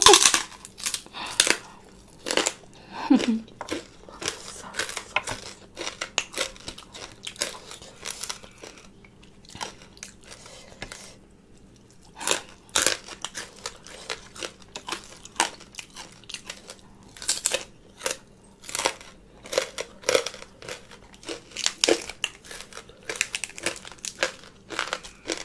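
Close-up eating sounds: crisp pork rinds crunching and papaya salad being chewed with wet mouth smacks, in irregular bursts with a short lull partway through. Near the end a lettuce leaf crinkles as it is folded.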